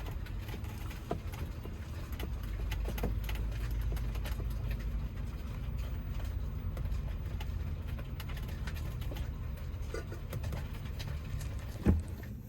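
Gas-engined Carryall utility vehicle running steadily as it is driven, a low even rumble with a few faint clicks, and a short knock near the end.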